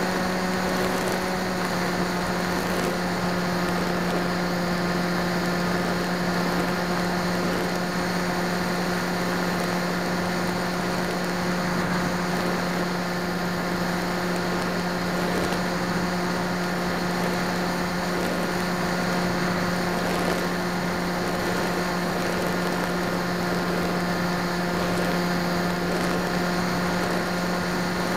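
FPV aircraft's motor and propeller humming steadily at one unchanging pitch, heard through the onboard camera's microphone along with a hiss of rushing air.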